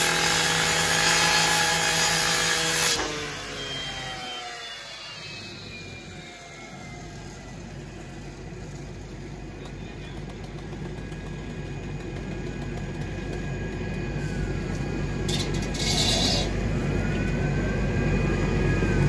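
A fire hose nozzle spraying with a loud hiss over the steady tones of the fire engine's pump. The flow cuts off about three seconds in and the engine's pitch falls away. A low engine rumble then builds slowly and is loudest near the end.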